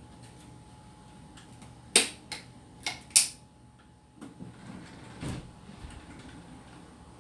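Eating utensils knocking against a bowl or plate in four quick, sharp clicks, followed by softer handling noises.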